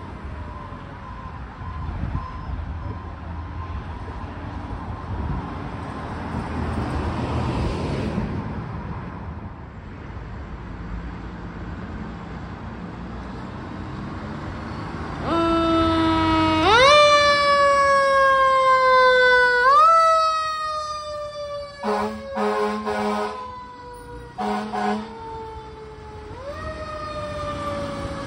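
Fire engine running with its siren: a fainter siren first, then a loud close one that sweeps up quickly and falls away slowly, over and over. Two air horn blasts break in about two-thirds of the way through, and then the siren winds up again.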